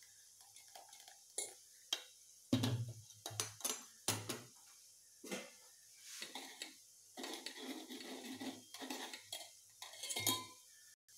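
Stainless steel pan, strainer and spoon knocking and scraping as thick tamarind and jaggery pulp is strained: irregular clinks and taps, a few duller knocks, then a run of quieter scraping of the spoon in the strainer mesh.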